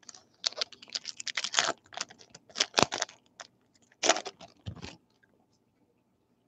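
A freshly opened pack of baseball trading cards being handled: the stiff cards and pack wrapper give short bursts of crackly rustling and clicking, stopping about five seconds in.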